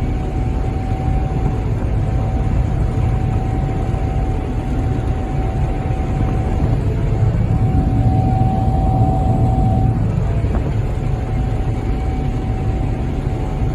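Gleaner combine running steadily while harvesting wheat: a deep, even machine drone with a thin steady whine over it.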